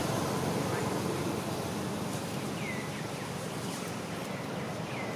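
Steady outdoor background noise, like a light wash of wind. Three faint short chirps, each falling in pitch, come at about two and a half, four and a quarter and five seconds in.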